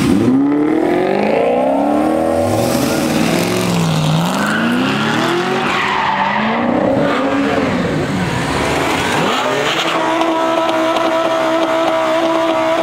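Supercharged V8 of a Cadillac CTS-V revving up and down hard with tyres squealing as the car power-slides. About ten seconds in, a Lamborghini Gallardo's V10 is held at a steady high rev.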